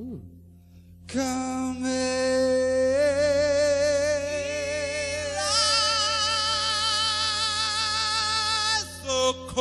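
Male rock singer's voice singing slow, long held notes with a wide vibrato. The notes step up in pitch twice, and there is a short break about nine seconds in.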